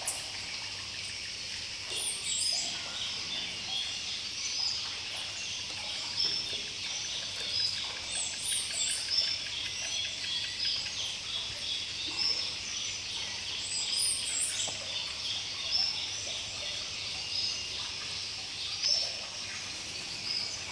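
Nature soundscape of animal calls: a dense, continuous chorus of high chirps and trills, with a higher repeated call about every six seconds.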